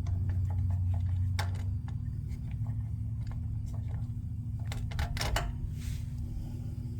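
Scattered light clicks and taps of hands and tools handling small engine parts, over a steady low hum that eases a little about two seconds in.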